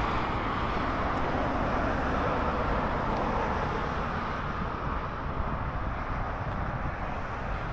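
Outdoor road-traffic noise: a steady rush of passing vehicles that eases off slightly over the last few seconds.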